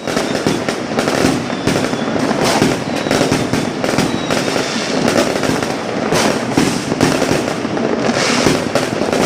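Many fireworks and firecrackers going off at once: a dense, unbroken rattle of bangs and crackling with no pause.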